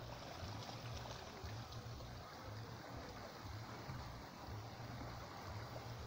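Small waves lapping and trickling against shoreline rocks, faint and steady, over an uneven low rumble.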